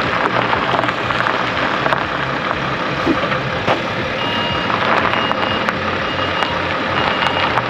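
A vehicle engine running steadily under a constant wash of noise; about halfway through, a reversing beeper starts, beeping evenly at a little more than once a second.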